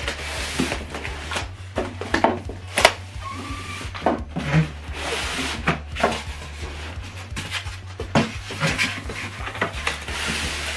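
Cardboard box and foam packing blocks being handled and pulled apart: irregular rubbing and scraping with a series of sharp knocks and taps, over a steady low hum.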